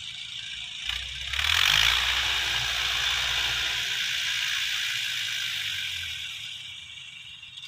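Massey Ferguson 185 tractor running with its tiller working the soil, a steady mechanical clatter over a low engine hum. It swells about a second and a half in and eases off near the end.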